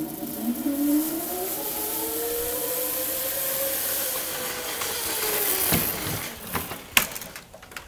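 Zipline trolley pulleys running along the cable under a loaded primary glider: a loud hissing whine whose pitch rises as the glider picks up speed, then falls as it slows. Two knocks near the end, the second, about seven seconds in, sharp and loudest.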